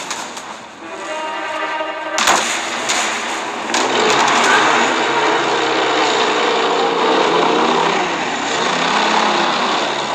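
A sharp bang at the start and another about two seconds in, then a vehicle engine running steadily.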